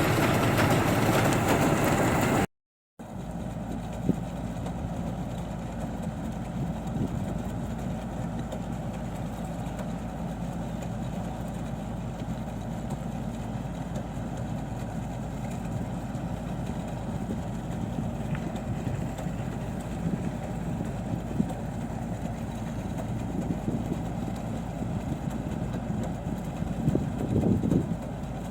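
Combine harvester's diesel engine running steadily. A louder, noisier stretch in the first two and a half seconds cuts off abruptly, and after a brief gap the steady engine sound resumes, swelling briefly near the end.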